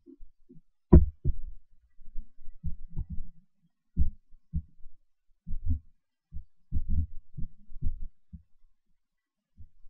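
Irregular muffled low thumps, a dozen or more, picked up by the microphone; the loudest comes about a second in.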